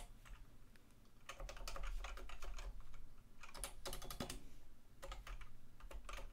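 Typing on a computer keyboard: quick runs of keystrokes starting about a second in, broken by short pauses.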